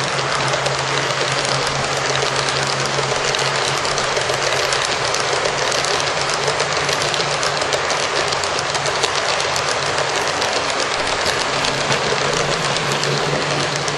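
Model freight train cars rolling past close by on a curve: a steady rolling rumble with dense, rapid clicking and rattling of the wheels on the track. A low steady hum runs under it, fading for a few seconds near the start and coming back.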